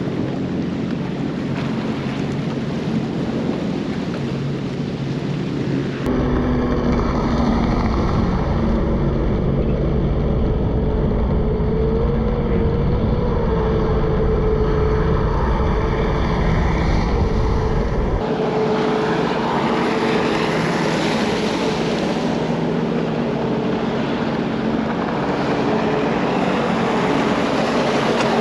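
Sea-Doo GTX jet ski engines running, with water and wind noise on the microphone. About six seconds in, a deeper, steadier engine drone sets in. Around eighteen seconds in, it gives way to a louder, hissing rush of water.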